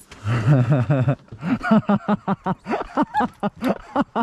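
People laughing: a low chuckle in the first second, then a run of short, bouncing laughs.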